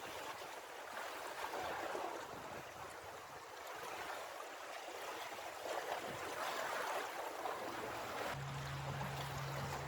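Sea water washing and surging against shore rocks, swelling twice. A low steady hum joins about eight seconds in.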